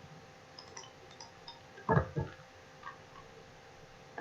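Computer mouse clicking: a few faint ticks, then a louder double click about two seconds in, over a faint steady hum.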